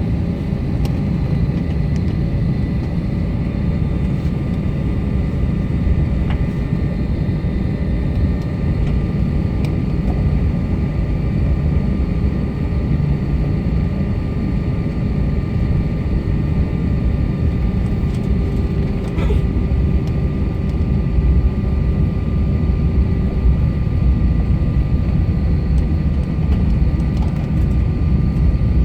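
Aircraft engine noise: a steady low rumble with several constant whining tones over it.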